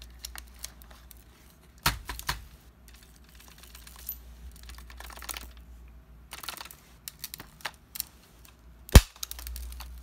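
Scattered plastic clicks and knocks from cordless vacuum parts being handled, with a sharp knock about nine seconds in.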